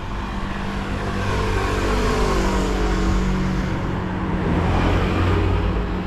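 Car passing by on the road. Its engine and tyre noise swell to a peak about two seconds in, and the pitch falls as it goes away. The noise swells again near the end, over a steady low hum.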